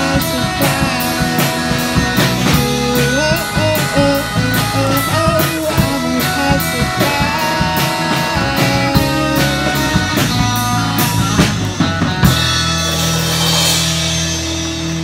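Amateur rock band playing live: electric guitar, bass guitar and drum kit through small practice amps, with a steady drumbeat. About twelve seconds in the drumbeat stops and a chord is left ringing with a cymbal wash.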